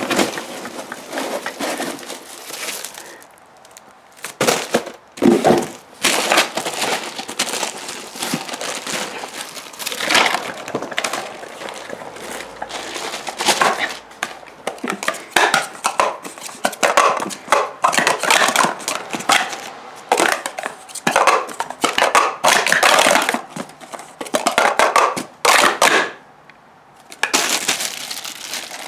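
Clear plastic bags crinkling and rustling in irregular bursts as stacks of sport stacking cups are unwrapped and handled, with a few short lulls.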